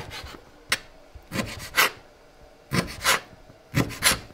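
Chef's knife slicing through guanciale (cured pork jowl) and striking the cutting board, dicing it into small cubes: a series of short cutting strokes, some in quick pairs, roughly two a second.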